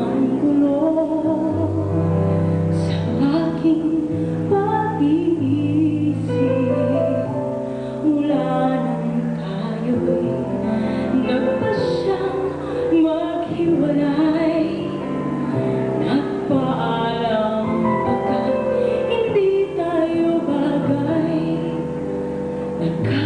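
A woman singing a slow ballad live into a handheld microphone, her voice wavering with vibrato on held notes, over sustained instrumental accompaniment.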